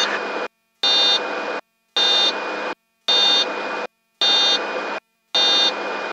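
Cockpit warning tone in a Beechcraft Bonanza, heard through the intercom, beeping about once a second. Each beep brings in a short burst of cabin and engine noise that cuts off to silence before the next.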